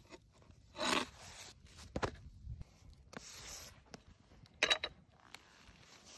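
A few short scrapes and taps of a steel knife blade against a slate cooking stone as flatbread dough is lifted and laid back down, with brief rustling of dry fallen leaves.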